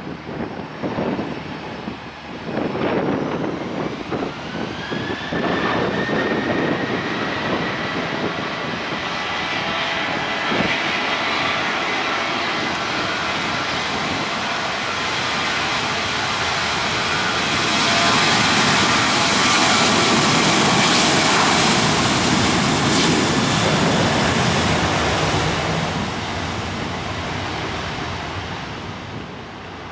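Southwest Airlines Boeing 737-700's CFM56 turbofans spooling up with a rising whine, then the steady jet noise of the takeoff roll. The noise is loudest about two-thirds of the way through and fades near the end.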